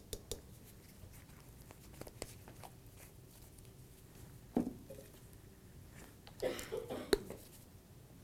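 Spice jars and shaker lids being handled: a few light clicks and taps, then short bursts of handling noise about halfway through and again shortly before the end.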